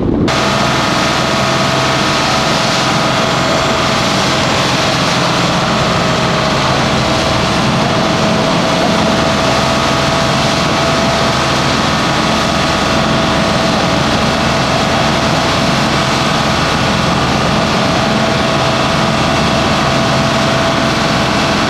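Fishing boat's engine running steadily under way through rough sea, a constant drone with a steady whine over it.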